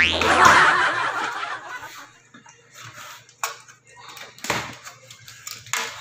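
A short laugh at the start, then cardboard rustling and scraping with a few sharp knocks as the flaps of a shipping box are pulled open.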